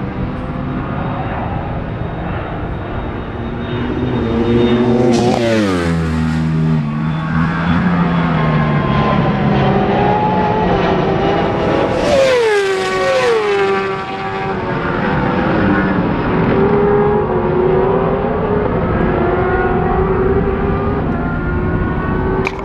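World Superbike racing motorcycles passing close at full speed, each engine note dropping steeply in pitch as it goes by: twice, about five seconds in and again about twelve seconds in. Between the passes, other bikes are heard accelerating and changing up through the gears.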